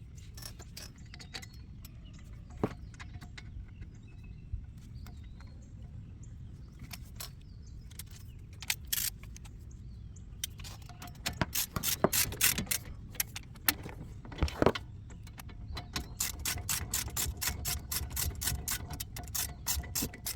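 Hand socket ratchet clicking in short runs while brake parts are tightened onto the truck's front hub, with scattered metal clinks. Near the end the clicking becomes a steady quick run.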